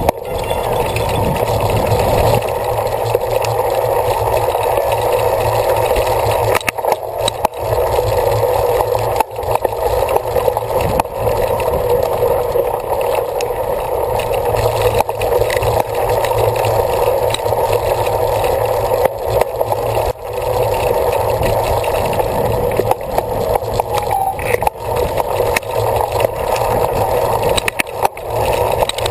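A cyclocross bike being raced: a steady rushing noise of tyres and wind, with rattles and scattered knocks from the bike over rough ground.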